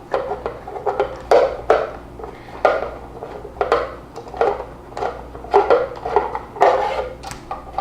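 Ratchet wrench with a socket on extensions clicking in repeated short strokes, roughly two a second, as a bolt on a Mossberg 500 shotgun is worked loose.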